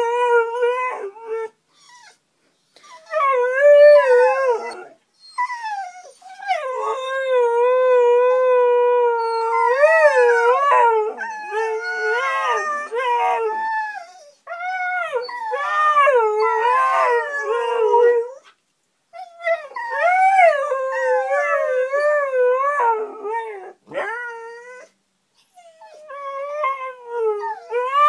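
Siberian huskies howling in long, wavering phrases with short breaks between them, the voices overlapping at times; the howling is set off by a car alarm.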